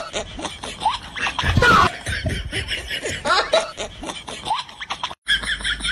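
Laughter in rapid short bursts, with a brief dropout near the end.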